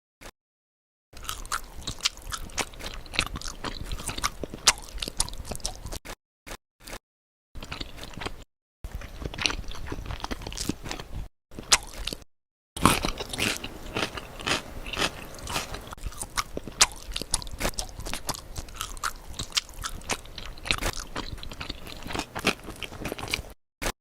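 Close-miked mukbang crunching and chewing: dense runs of sharp crackles and bites, broken by a few brief dead-silent gaps.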